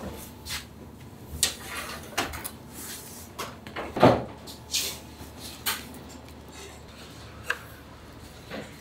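Kitchen work clatter: scattered short knocks and clicks of metal tins, trays and a knife on a steel worktop, the loudest about four seconds in.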